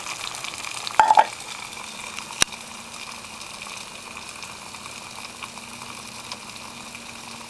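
Two cups of water at a rolling boil in a hard-anodized aluminium kettle over an alcohol stove, a steady bubbling hiss. A brief ringing metallic clatter about a second in and one sharp click a little later.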